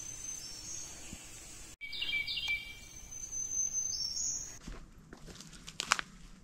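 Songbirds singing in the woods: high, thin songs, with a lower stepped phrase about two seconds in. In the last couple of seconds come a few sharp clicks and knocks.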